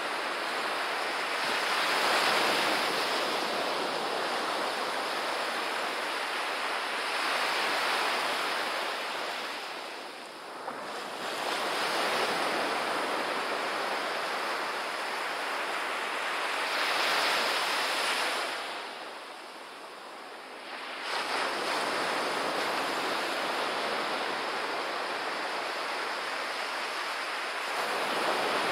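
Small surf breaking and washing up a sandy beach, a steady rush that swells and eases every few seconds. It drops back briefly about a third of the way in and again about two-thirds through.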